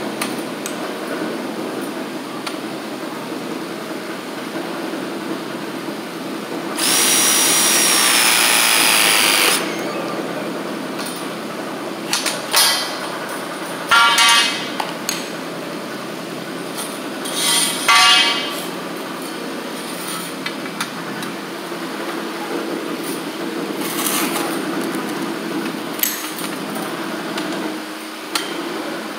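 Ridgid cordless ProPress tool running a single press cycle of about three seconds, an even motor whine as its jaws crimp a fitting onto copper pipe. Later, copper pipe clanks and rattles twice as it is handled, over steady background noise.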